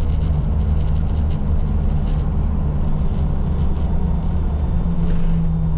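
Steady low rumble of a moving road vehicle, heard from inside.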